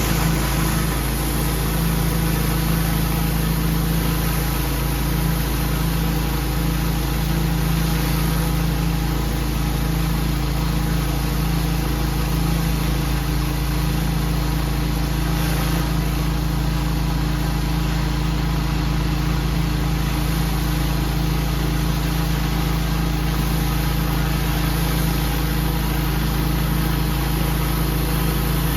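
Pressure washer engine running steadily at a constant speed, with an even high hiss over it.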